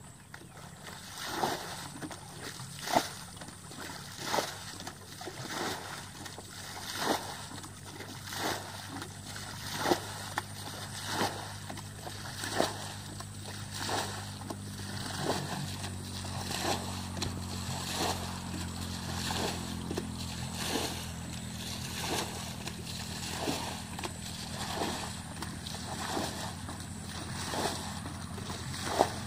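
Green plastic bucket scooping water from a shallow muddy pool and throwing it out, a splash about every second and a half in a steady rhythm: bailing the pool dry to catch fish. A low steady hum comes in about halfway.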